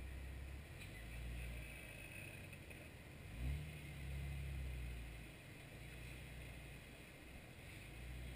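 Jeep Wrangler TJ engine running at low revs while rock crawling, the throttle easing on and off, with a short rev a little before halfway.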